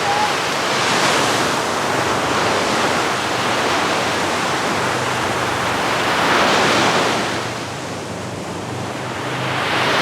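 Sea waves breaking on a beach, a steady wash of surf that swells with each breaking wave about every five seconds.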